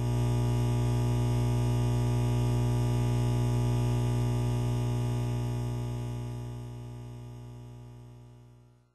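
Steady low electronic buzz with many overtones, a mock broadcast-fault hum, holding level and then fading out over the last few seconds.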